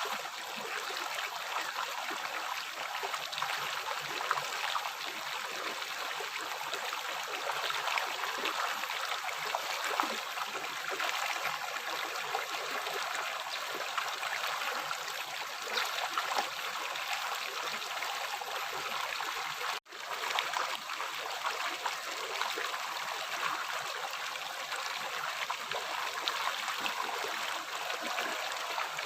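A river flowing with a steady rush of water and small splashing flickers. The sound cuts out for a split second about two-thirds of the way through.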